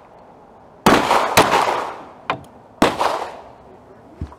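Glock 43 9mm pistol firing Buffalo Bore 147-grain +P hard-cast lead rounds: three sharp shots, the first two about half a second apart and the third about a second and a half later, each trailing off in an echo. A fainter crack comes between the second and third shots.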